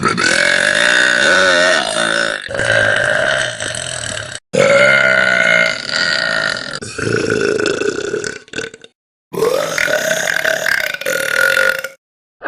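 Young women belching: a run of about five long, drawn-out burps, each lasting two to three seconds, one after another with short breaks between.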